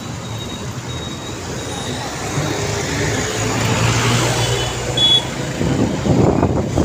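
Road traffic heard from a moving two-wheeler: a steady hum of engines and tyres that swells through the middle as vehicles pass close.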